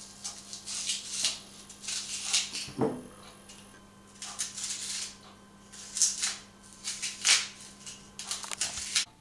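Small kitchen knife scraping and cutting into a raw onion's inner layers to hollow it out: crisp, crunchy strokes at irregular intervals of about one a second. A duller knock about three seconds in.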